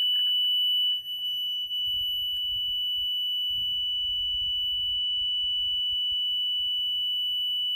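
A boat engine's ignition warning buzzer sounding as one continuous high-pitched tone, with the key switched on before the engine is started.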